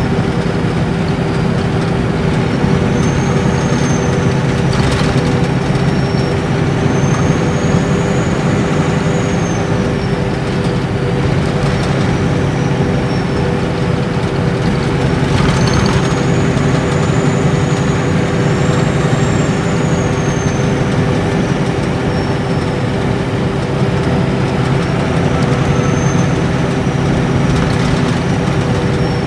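Nissan Diesel Space Arrow RA coach's inline-six turbo diesel cruising, heard from inside the cabin as a steady low drone with road noise. A high turbocharger whistle rises and falls several times, and there are two brief hisses, about five seconds in and again about sixteen seconds in.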